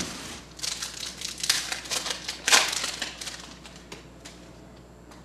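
Wrapper of a trading-card pack crinkling as it is opened and the cards are pulled out, in several rustles over the first three seconds or so, then quieter handling.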